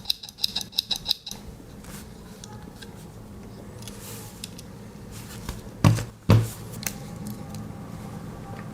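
Small Victorinox Swiss Army knife scissors worked open and shut, a quick run of small metallic clicks, about seven a second, that stops just over a second in. About six seconds in come two loud knocks half a second apart, the loudest sounds.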